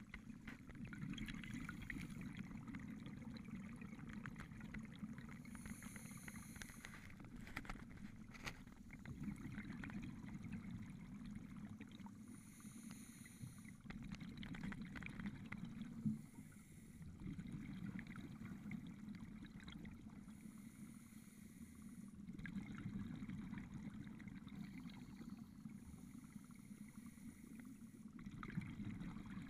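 A scuba diver's regular breathing through a regulator, heard underwater: a brief hiss about every six or seven seconds over a steady, muffled rumble of bubbles and water.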